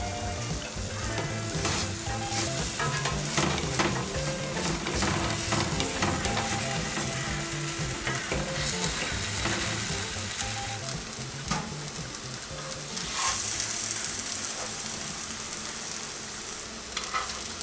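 Uttapam batter frying in butter on a hot pan, sizzling steadily while the first side browns, with a few light clicks. The sizzle swells briefly about three-quarters of the way through.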